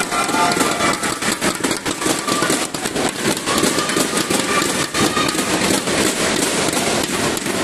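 Badminton rally in a hall: racket strikes on the shuttlecock amid a dense, continuous patter of sharp clicks and crowd noise.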